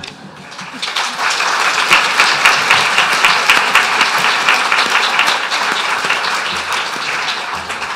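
Audience applauding, swelling about a second in and slowly fading toward the end.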